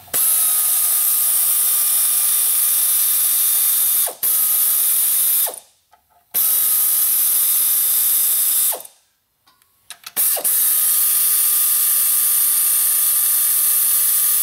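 Power ratchet on a long extension spinning out the transmission bell housing bolts of a Cummins engine. It runs in four bursts of steady whine over a loud hiss, with short pauses between them.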